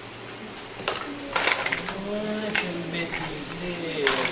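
Mussels and artichokes sizzling in oil in an aluminium sauté pan over a gas burner, with a few sharp clinks as the pan and its contents are handled. A voice can be heard faintly over the sizzle from about a second and a half in.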